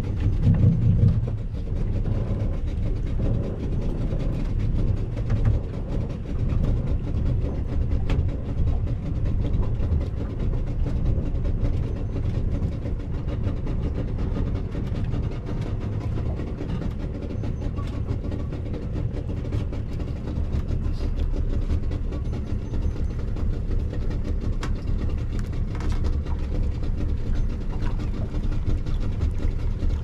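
Wind rumbling on the microphone over a steady motor hum with a few faint held tones.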